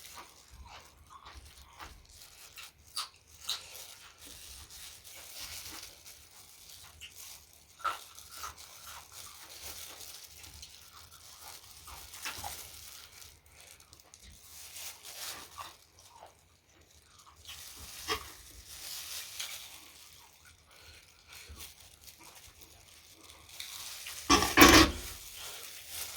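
Close-miked chewing and wet mouth sounds of someone eating, with scattered clicks and crunches, and one much louder burst of noise near the end.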